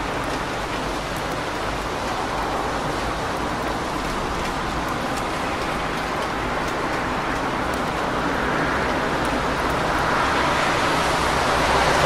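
Steady rain on a wet street, with the hiss of car tyres on the wet road. A passing car's hiss grows louder over the last few seconds.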